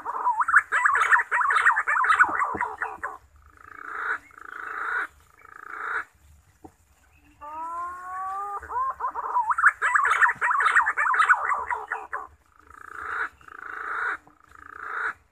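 Green pigeon (punai) song: rising whistles lead into a fast warbling run, then three swelling notes. The same phrase comes twice, about seven and a half seconds apart.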